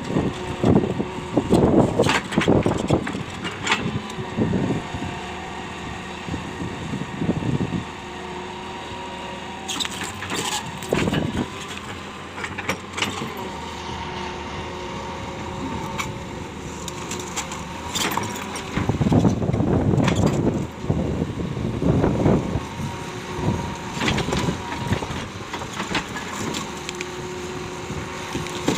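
Hitachi 200LC hydraulic excavator working: a steady machine whine runs underneath, with several louder spells and scattered knocks.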